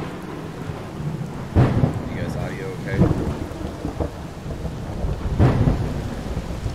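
Thunderstorm sound effects: steady rain with two sharp thunderclaps, one about a second and a half in and one about five and a half seconds in, each rolling off into low rumble.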